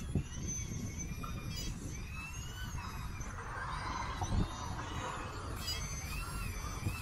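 Hydraulic RC scale excavator (Magom Cat 320) working: the hydraulic pump whines, its pitch rising and falling in glides as the boom lifts and the upper body swings, over a steady low rumble.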